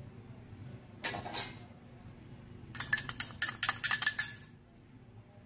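A metal spoon clicking and scraping rapidly against a small glass bowl for about two seconds, knocking the last of the salt out into a glass mixing bowl. About a second in, a short rush of salt being tipped out of the glass bowl.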